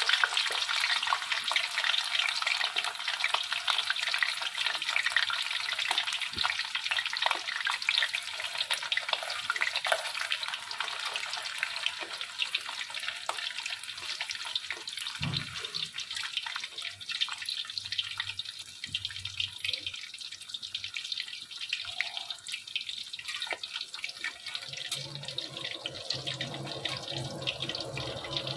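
A block of paneer shallow-frying in hot mustard oil: a dense sizzle and crackle of spitting oil, loudest at first and easing off in the second half, with a dull knock about halfway through.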